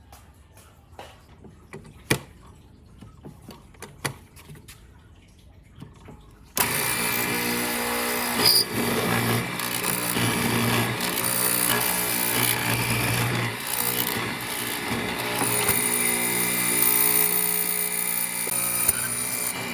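A few light knocks and clicks, then about six and a half seconds in a power tool starts abruptly and runs continuously at a steady pitch.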